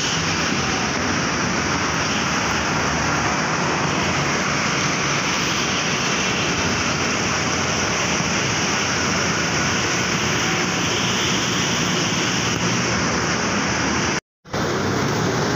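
Steady rushing noise of road traffic, cutting out for a split second near the end.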